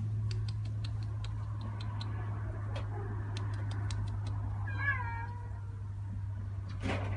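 A cat meows once, about five seconds in, a short call that falls slightly in pitch. Before it comes a run of light clicks, and a steady low hum runs underneath.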